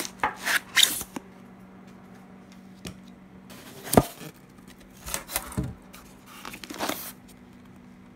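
Plastic-wrapped food packs being handled and moved about in a styrofoam shipping box: short, irregular rustles and crinkles, with a sharp knock about four seconds in, over a faint steady hum.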